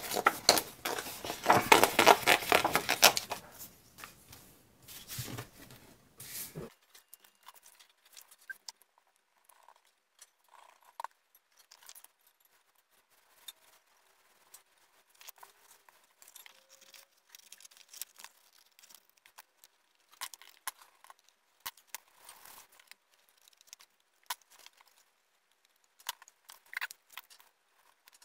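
Sheets of scrapbook paper rustling and crinkling as they are handled, loudest in the first three seconds or so, then only faint scattered rustles and taps of paper on the table.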